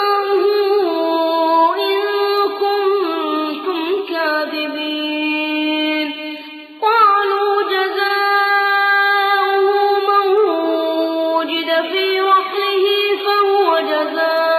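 A male reciter chanting verses of the Quran in a melodic, drawn-out style. One voice holds long notes that glide slowly in pitch, with a brief breath pause about seven seconds in.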